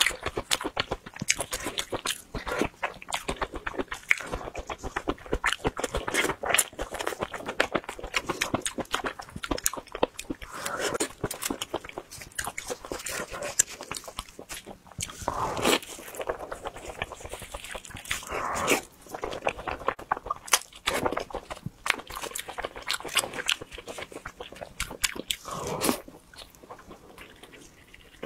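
Close-up chewing and biting of spicy fried skewered food: a rapid run of crunches and wet mouth clicks, thinning out near the end.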